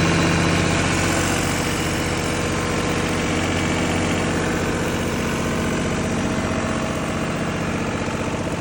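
MTU 30 kW generator set's John Deere diesel engine running steadily, with an even, unchanging engine note.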